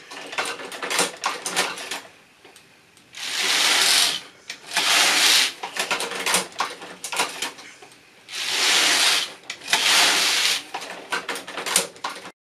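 Passap E6000 knitting machine's lock being pushed by hand across the needle beds: four noisy passes of about a second each, in two pairs, with sharp clicks from the machine between them. The sound cuts off abruptly near the end.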